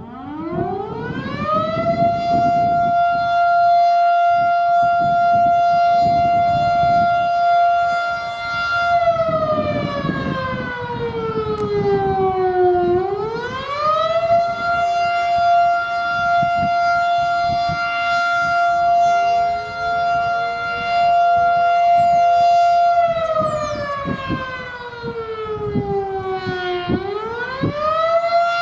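Federal Signal Model 7 electromechanical storm siren sounding the attack signal. It winds up from a low growl to a steady high wail in about two seconds and holds there. Twice it sags in pitch over a few seconds and winds back up to full tone.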